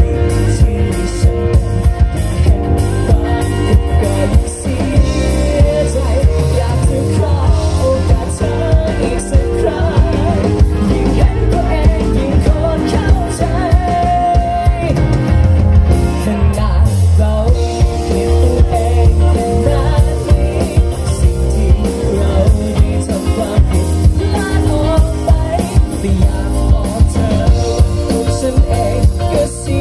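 Live rock band performing: a male lead singer sings over electric guitar, keyboard and drums.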